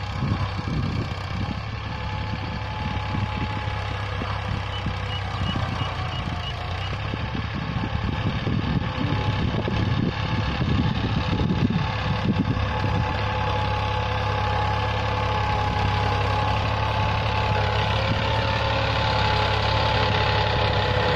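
Powertrac tractor's diesel engine running steadily under load as it pulls a cultivator through the field, growing louder as it comes closer.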